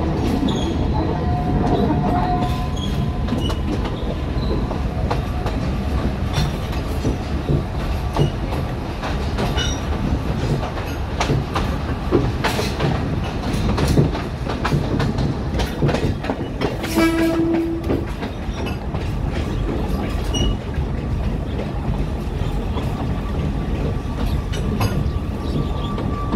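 Alishan Forest Railway narrow-gauge train running slowly, heard from on board: a steady rumble with wheels clacking over rail joints. A short pitched tone sounds about two-thirds of the way through, and a thin steady whine comes in near the end.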